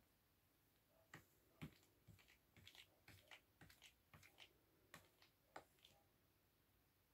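Faint, irregular taps, clicks and scrapes of a Ragdoll cat shifting about inside a clear plastic storage box, rubbing and knocking against the plastic. They start about a second in and die away after about five and a half seconds.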